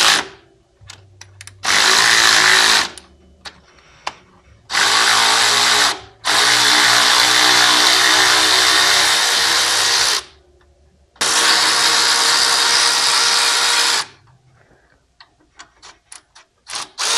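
Cordless electric ratchet with an Allen socket running in four bursts of one to four seconds, backing out thread-locked floorboard mounting bolts. Short clicks come in the gaps between runs.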